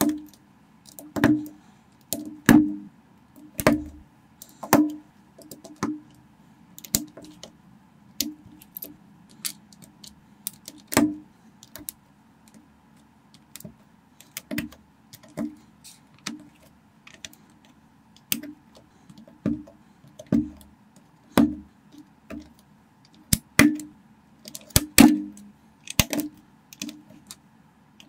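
Plastic Lego-type bricks clicking as fingers press them onto a build, sharp irregular clicks about one a second.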